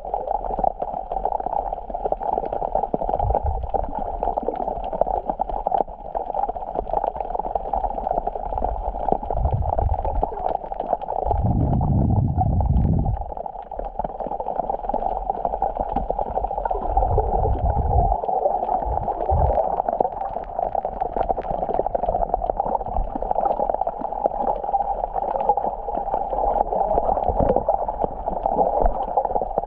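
Black Sea water washing and gurgling at the shore in a steady wash of noise, with a few short low rumbles, the longest about twelve seconds in.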